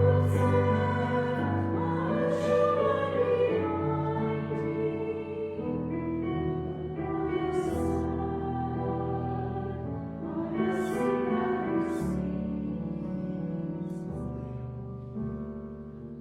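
Singing with piano accompaniment: a slow song with long held notes.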